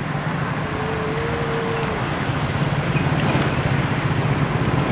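Road traffic: a minivan passes close by, then a pickup and an orange Mitsubishi Fuso cargo truck approach, their engine hum slowly growing louder. A short steady tone sounds about a second in.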